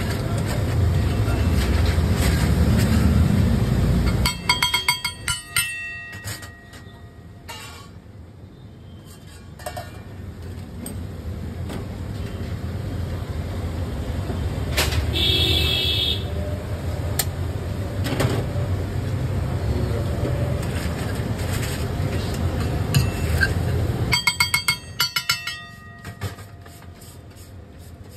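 Metal masher and spatula clattering against a flat iron tawa in two quick runs of ringing clinks, about a quarter of the way in and again near the end, over a low rumble of street traffic.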